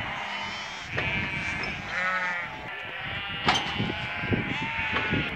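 Flock of sheep bleating in the pens, several separate calls overlapping one another, with a sharp knock about three and a half seconds in.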